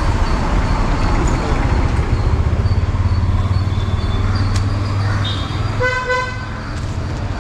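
Busy city street traffic: engines running with a steady low rumble, and a vehicle horn giving a short honk about six seconds in.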